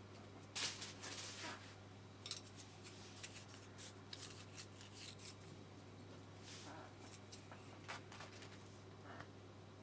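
Scattered light clicks and scrapes of kitchen utensils being handled, loudest in a cluster about a second in, over a low steady hum.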